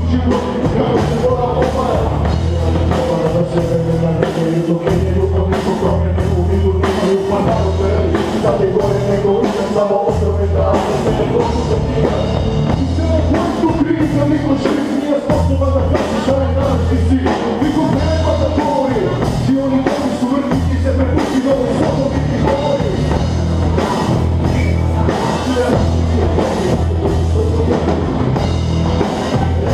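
Live rap over a rock band: rapped vocals through the PA over drum kit, electric bass and electric guitar playing a heavy beat, with a bass pulse repeating steadily throughout.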